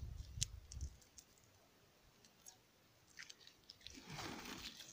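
Clear plastic grafting strip crinkling as it is handled and pulled from its roll: a few light clicks, then a louder rustling crinkle about four seconds in.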